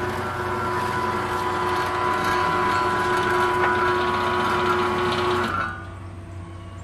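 Electric sliding-gate opener motor running with a steady whine, driving the cantilever gate closed along its roller chain. It cuts off sharply about five and a half seconds in, as the closing magnet reaches the limit sensor and stops the motor.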